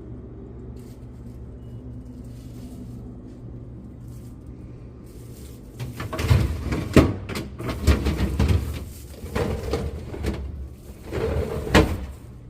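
A steady low hum, then from about six seconds in a run of loud knocks, bumps and clatter in several clusters, like doors, drawers or shelves being handled.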